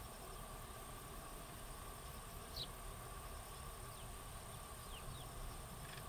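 Eurasian tree sparrows feeding in a flock give a few short, falling chirps, the loudest about two and a half seconds in and several more near the end, over a steady high-pitched drone.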